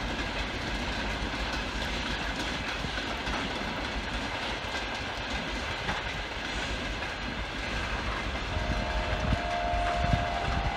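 Freight train of tank wagons rolling past steadily on the rails. A faint held tone joins near the end.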